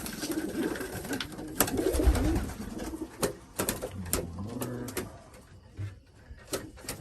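Racing pigeons cooing in the loft, in wavering low calls that come and go, among scattered sharp clicks and taps.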